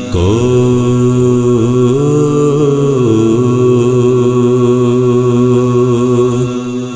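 Unaccompanied soazkhwani: a male voice chanting an Urdu elegy (soz) in one long held phrase. The note steps up about two seconds in, settles back a little after three seconds, and fades near the end.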